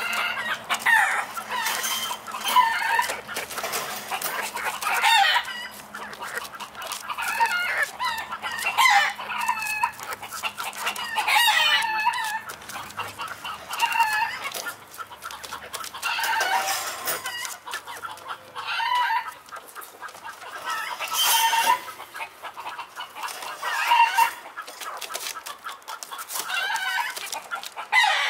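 Chickens clucking and calling again and again, in bursts every second or two, with faint clicking underneath.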